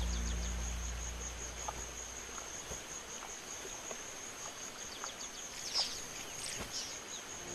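Savanna ambience: a steady, high, thin insect drone, with a few short, high bird chirps about six seconds in.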